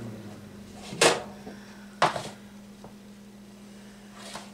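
Two sharp metal clunks about a second apart as a metal loaf pan is taken out of a countertop air fryer oven, the first the louder. A steady low hum runs underneath.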